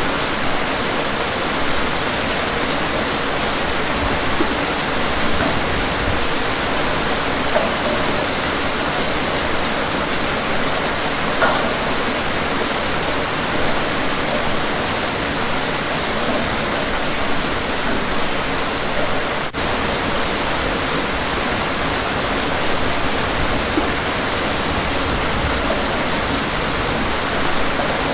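Steady, dense rain falling heavily, an even hiss with scattered drop patter, with a momentary dip in level about two-thirds of the way through.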